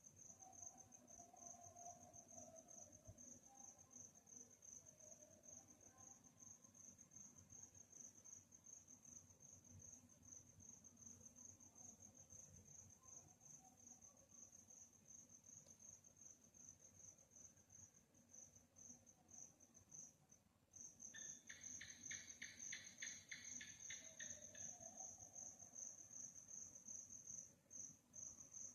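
Crickets chirping in a continuous high, finely pulsed trill. The trill breaks off for a moment about two-thirds of the way through and then resumes. Right after the break, a second, lower call of rapid pulses joins it for about three seconds.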